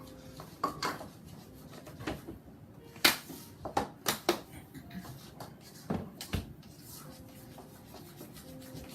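Spoons stirring and scraping thick icing in mixing bowls by hand, with irregular clinks and knocks of spoon on bowl, the sharpest about three seconds in.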